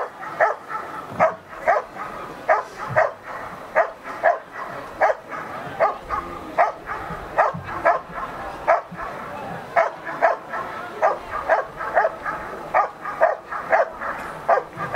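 German Shepherd barking steadily at a helper who stands still with a bite sleeve, about two barks a second. The dog is guarding him in a protection test: sitting and barking in place rather than biting.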